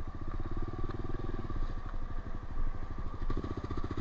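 Honda CRF125F's single-cylinder four-stroke engine running under way, a steady stream of firing pulses that grows a little louder about three seconds in.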